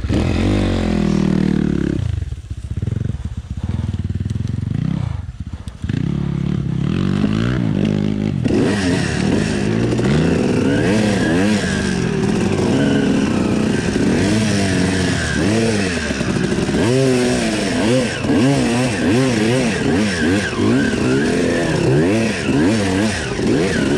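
Suzuki RM250 two-stroke dirt bike engine running, blipped up and down with two brief drops in the first few seconds, then pulling away, its revs rising and falling as the bike is ridden.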